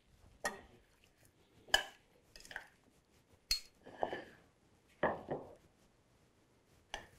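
Metal tongs clinking and scraping against a ceramic bowl while tossing cucumber and red onion slaw in vinaigrette: a series of about seven separate clinks, each with a short rustling scrape.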